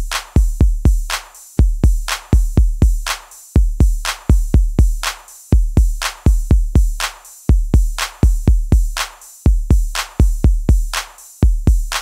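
Electronic background music: a drum-machine beat of deep bass kicks and sharp hits in a pattern that repeats about every two seconds.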